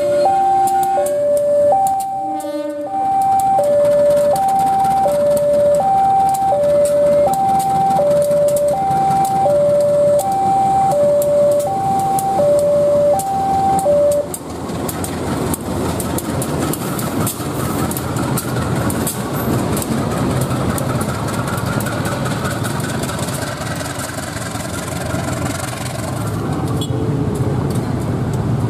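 Level-crossing warning alarm sounding an alternating two-tone high-low signal, about one change every half second, over a KAI CC 203 diesel-electric locomotive passing the crossing. The alarm stops about halfway through, leaving the locomotive's engine running with a steady rumble and the wheels clicking over the rails.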